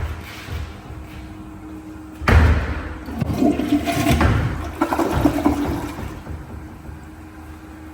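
An American Standard restroom fixture flushing. A sudden rush of water starts about two seconds in, swirls and drains for about four seconds, then tapers off.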